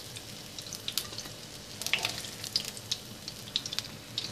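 Hot oil sizzling in a frying pan where batter fritters have been frying, with scattered small clicks and pops as the fritters are lifted out with tongs.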